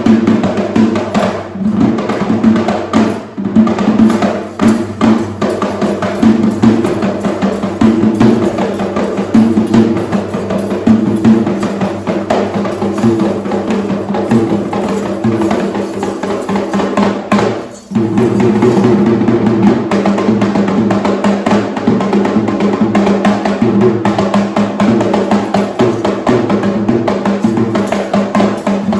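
Traditional Sri Lankan drums played together in a fast, dense rhythm, with a brief drop in the drumming just before the middle.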